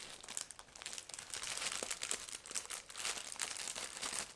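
Plastic wrapping crinkling and crackling in irregular bursts as a wrapped decal pack is opened and handled by hand.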